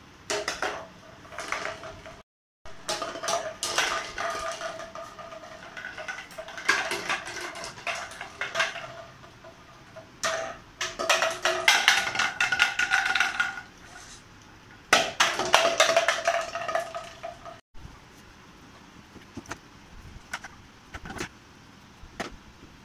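Empty plastic water bottles knocking and clattering against a hard floor, in irregular clusters of sharp clicks and knocks.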